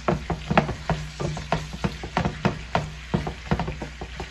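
Sliced onion frying in olive oil in an aluminium pan, stirred with a wooden spoon that scrapes and knocks against the pan several times a second over the sizzle.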